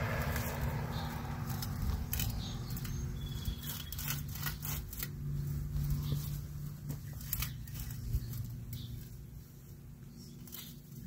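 Long-handled step-on garden digging tool being forced into hard, dry soil: scattered crunching and scraping clicks, thinning out near the end, over a low steady hum.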